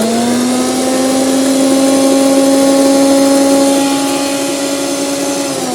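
Einhell TC-SP 204 planer thicknesser's motor and cutter block running free at full speed with a steady whine, then switched off near the end, the pitch falling as it spins down.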